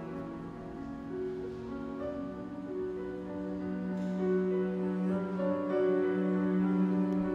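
Slow, gentle piano music, with a low note held steady beneath the melody.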